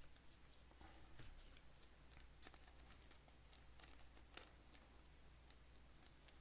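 Near silence with faint, scattered small clicks and light rustling of trading cards being handled.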